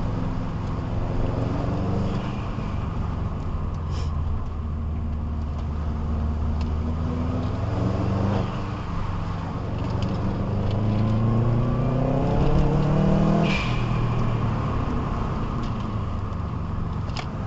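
Car engine heard from inside the car, pulling up through the revs twice, each climb ending in a sudden drop in pitch, with a brief sharp noise as the second climb ends.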